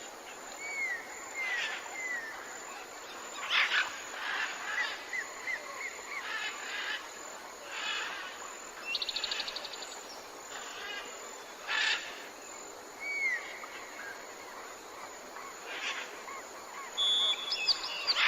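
Several wild birds calling: short repeated whistles, a quick trill of about a dozen notes around nine seconds in, and harsher chirps, over a steady hiss of background ambience.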